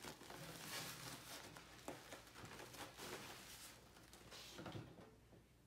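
Faint rustling and handling noise of a plastic packing bag being pulled off an AV receiver, fading out near the end.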